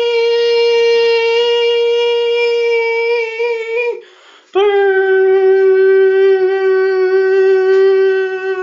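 A voice holding a long hummed note in imitation of an emergency alert attention tone. Two long steady notes, the second a little lower than the first, with a brief break about four seconds in.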